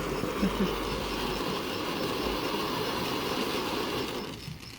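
Steady rushing hiss of a ground fountain firework spraying sparks, dying away about four and a half seconds in.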